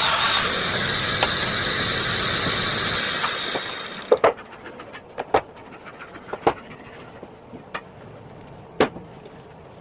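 Circular saw set in a workbench table finishing a cut through a particle-board sheet, then running on its own with a steady high whine that cuts off about four seconds in. After that come a few sharp knocks of boards being handled.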